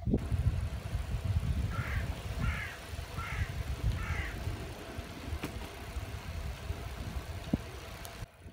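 Low rumble of wind buffeting the microphone while riding a Brompton folding bicycle along a paved path. Four short high chirps come in quick succession about two seconds in.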